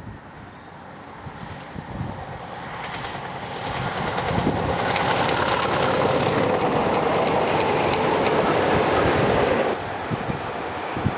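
A convoy of five heritage diesel locomotives (classes 31, 56, 50 and 33) approaching and passing close by, with engine noise and wheel clatter. The sound builds over the first few seconds, stays loud, then drops suddenly near the end.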